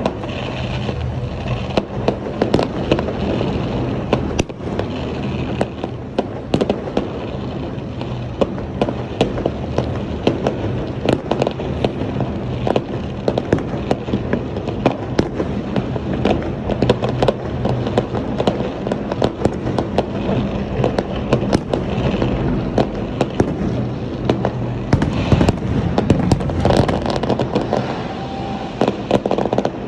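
Fireworks going off in a dense barrage of rapid bangs and crackles, heaviest about five seconds before the end, over a steady low hum.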